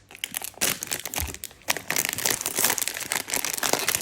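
Plastic packaging crinkling as a mystery-box toy figure is unwrapped, a dense irregular run of crackles.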